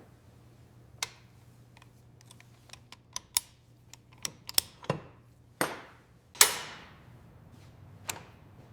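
Workshop handling noise: a run of irregular clicks and knocks as tools and parts are picked up and set down, with two louder knocks a little past halfway, the second ringing briefly.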